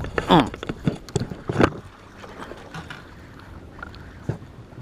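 A short cry falling in pitch as a bass is hooked, then a few sharp knocks within the next second or so, settling into steady wind and water noise around a small boat.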